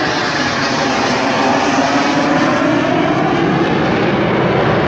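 An airplane's engine noise as it flies past: a loud, steady roar whose pitch shifts slowly.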